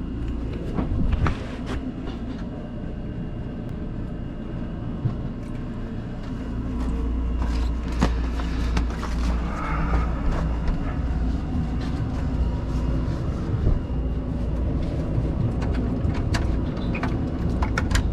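Steady low rumble of a boat's machinery, heard from inside the cabin, with scattered knocks and clatter of things being handled.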